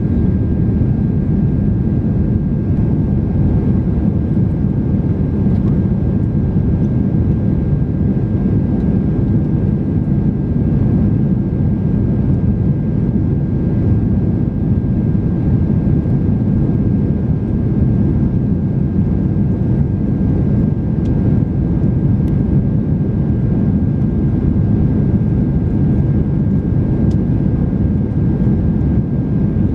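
Steady cabin noise of a Boeing 767-300 climbing out after takeoff, heard from a window seat over the wing: a deep, even rush of engine and airflow noise, with a faint steady high tone above it.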